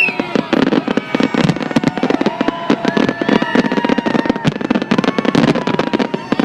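Fireworks display going off in a dense, rapid barrage of bangs and crackles, with several held tones sounding in the background that shift in pitch now and then.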